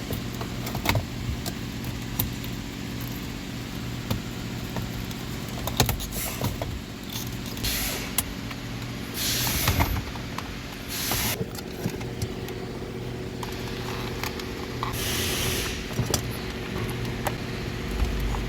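Hand work behind a car's glove box: irregular clicks, knocks and a few short scraping rustles of tools and plastic trim, over a steady low hum.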